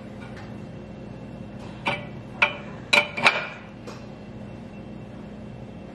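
A wrench clinking on a steel elbow hydraulic fitting as it is snugged into the port of a QuickJack lift cylinder: about five sharp metal clicks within a second and a half, some two to three seconds in, over a faint steady hum.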